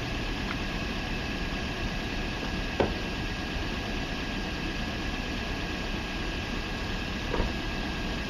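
Steady rumble of a distant approaching freight train's diesel locomotives, with two short knocks, about three seconds and seven and a half seconds in.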